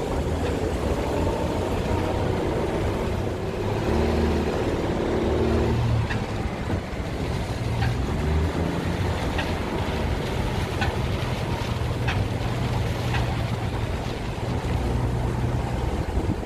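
A 1950 Studebaker Champion's 2.8-litre side-valve inline-six running as the car rolls slowly along a dirt lane, with a steady low rumble and tyre noise. Its engine note stands out more clearly a few seconds in, and a few light ticks come in the second half.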